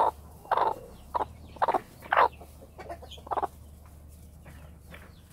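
Broody Cheonggye (green-egg) hen giving a run of short clucks, about seven in the first three and a half seconds before she falls quiet: a warning to keep away from the eggs she is sitting on.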